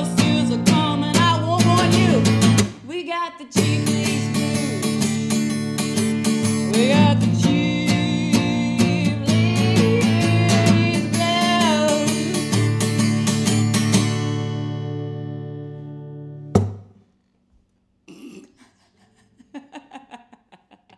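A woman sings a blues song to a strummed acoustic guitar, with a short break about three seconds in. The last chord rings out and fades, a sharp knock cuts it off, and faint laughter follows near the end.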